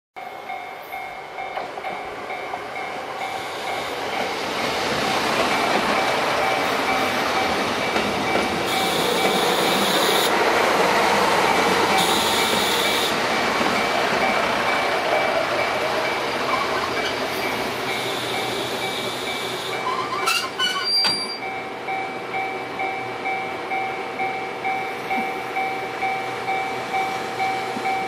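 Diesel passenger express train running past a station platform, growing louder over the first few seconds. Near the end its wheels clack over rail joints in an even beat, roughly one and a half a second.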